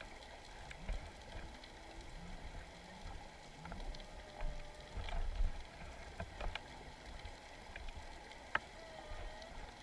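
Underwater ambience heard through a waterproof camera housing on the sea floor: faint scattered clicks and crackles over a low muffled rumble, with a faint wavering tone now and then.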